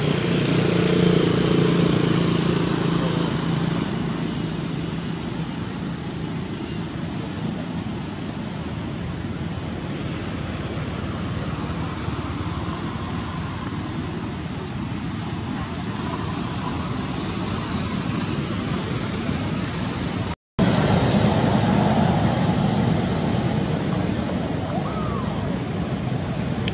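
Steady outdoor background noise resembling distant road traffic, with a low hum for the first few seconds. The sound cuts out for a split second about two-thirds of the way in, then returns a little louder.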